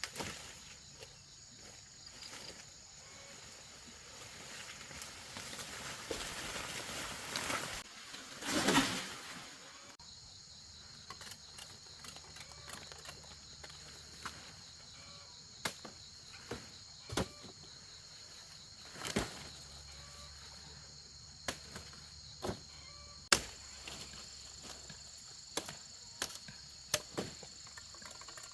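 Insects chirring steadily in high, even bands. A rustling swell rises to a loud peak about nine seconds in, and scattered sharp knocks follow through the second half.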